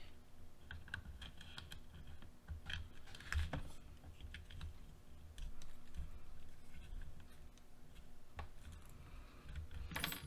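Scattered faint clicks and taps of hard plastic parts being handled as a front shock is fitted to the shock tower of a Traxxas Slash kit's front suspension, with a sharper knock near the end.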